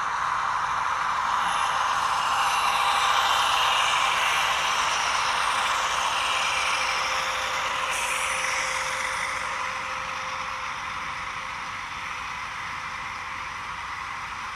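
HO scale model freight train passing, led by diesel locomotives whose engine sound plays through small onboard speakers, along with the running noise of the train on the track. It is loudest as the locomotives go by, a few seconds in, and fades gradually as the freight cars follow.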